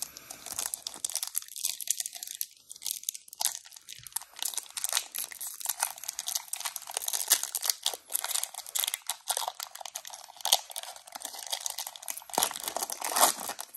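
Foil wrapper of a Pokémon TCG booster pack crinkling and tearing as it is peeled open by hand, an irregular run of crackles and snaps.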